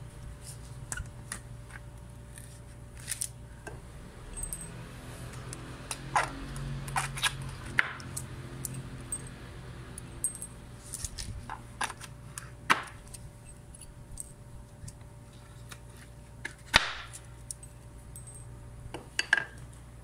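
Nails being worked out of an old wooden pallet board with a hand tool: scattered sharp metallic clicks and knocks, irregular and a few seconds apart at their loudest.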